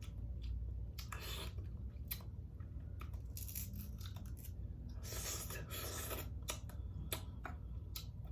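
King crab leg shells being cracked and torn open by hand, with scattered sharp snaps and tearing rustles, along with some close chewing.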